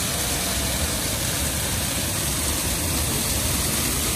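Small rock waterfall pouring over stones and splashing into a pond: a steady rushing of water.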